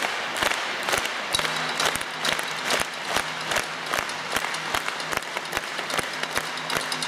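Audience clapping together in time, a steady beat of a little over two claps a second, with a faint low steady tone coming in about a second in.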